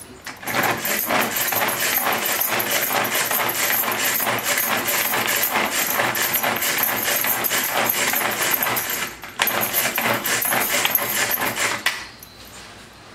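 Pigeon pull-cord hand chopper being worked repeatedly, its plastic blades rattling fast as they chop onion in the plastic bowl. A brief pause about nine seconds in, and it stops about twelve seconds in.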